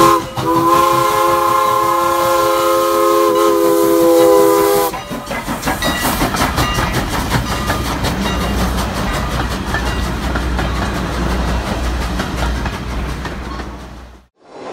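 Steam locomotive whistle sound effect: a chord of several tones held for about four and a half seconds. It gives way to a train running, a fast rhythmic chuffing and clatter over a low rumble that fades out shortly before the end.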